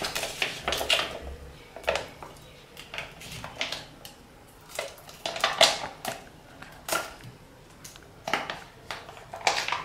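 Steel spoon clinking against a glass bowl, with a plastic packet crinkling as thick idli batter is squeezed out of it into the bowl. Short clinks and rustles come about once a second.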